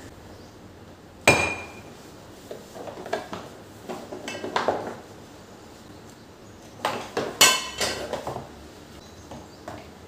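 Kitchen containers and wooden utensils being handled and set down on a granite countertop. One sharp, ringing clink comes just over a second in, followed by two runs of knocks and clatters; the loudest, also ringing, falls about three-quarters of the way through.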